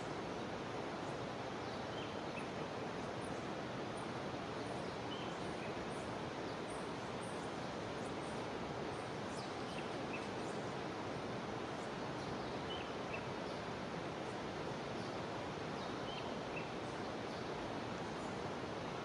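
Jungle river running with a steady rush of water, with short, high chirps from small animals every second or two.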